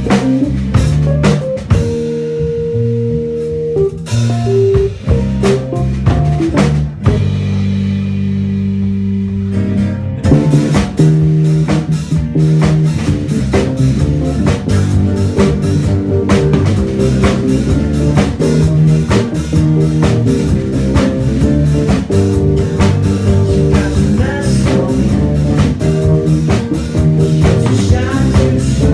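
Live rock band playing an instrumental passage with electric guitar, bass guitar and drum kit. From about two to ten seconds in, held chords ring with few drum hits; then the full band comes in with a steady drum beat.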